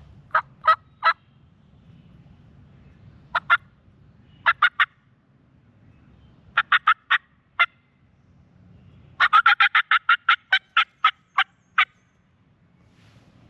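Hen turkey calls made on a turkey call: short yelps in small groups of two to five, then a fast run of about a dozen notes a few seconds from the end, a fly-down cackle imitating a hen leaving the roost so the gobblers take her to be on the ground.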